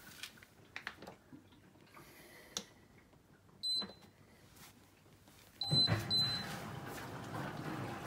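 Smeg DWAU157XT dishwasher's control panel giving a short high beep at a button press, then two more beeps as the cycle starts. At the same moment a steady rush of water sets in as the machine begins to fill.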